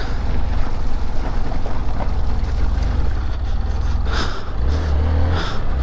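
Motorcycle riding over a rough gravel and rock track: the engine runs steadily under a low rumble of tyre and road noise and wind on the microphone, with a few short noisy swells near the end.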